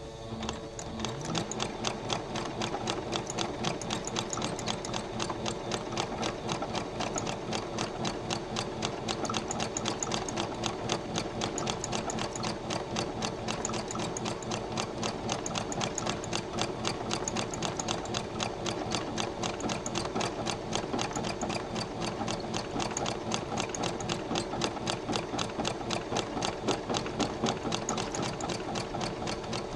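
Home sewing machine starting up and stitching steadily with a rapid, even needle rhythm, sewing thread through needlepoint canvas.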